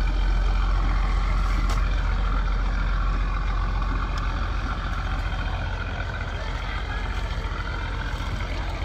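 A large engine running steadily with a deep, even hum, the engine of the powered log-pulling cable machine, easing slightly from about halfway through.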